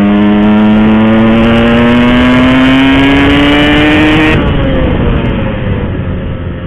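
Yamaha RX-King's two-stroke single-cylinder engine accelerating, its note climbing steadily for about four seconds. The throttle then shuts and the engine note drops and falls away.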